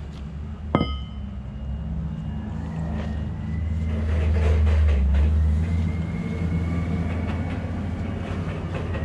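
A steady low machine drone, and about a second in a single sharp metallic clank that rings briefly, as the forklift's steel axle shaft is set down on the concrete floor.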